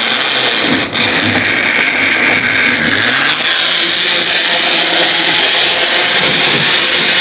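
Electric model train running on the track and passing close by, a steady whirring rattle of its motor and wheels on the rails.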